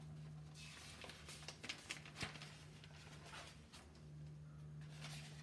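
Near silence: quiet room tone with a low hum that comes and goes, a faint hiss and a few faint clicks.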